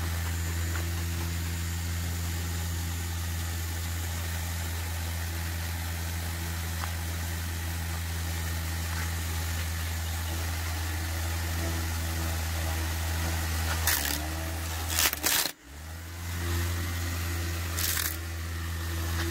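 A small motor running steadily with an even hum. A few sharp clicks come near the end, and the hum drops out briefly before picking up again.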